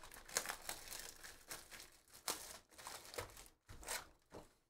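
Plastic shrink wrap on a trading-card hobby box crinkling and tearing as it is pulled off by hand, a dense crackle that thins to a few soft handling sounds in the last second or so.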